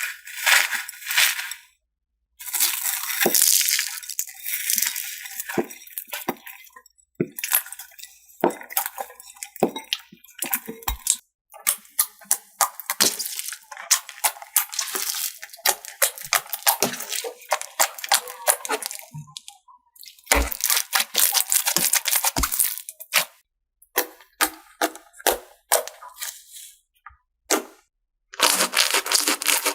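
Slime being squished, poked and stretched by hand, giving dense crackling and popping clicks with wet squishes, in a string of short clips that cut off abruptly between one another.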